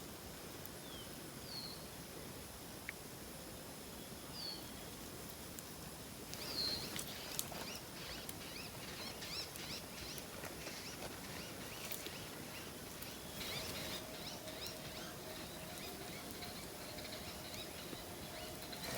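Faint outdoor ambience with birds calling: a few short, high chirps, then quicker chirping for several seconds around the middle.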